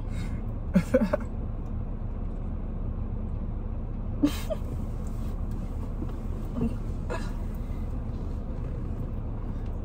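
Steady low hum inside a parked car's cabin, with a few short, soft chuckles at about 1, 4, 6.5 and 7 seconds in.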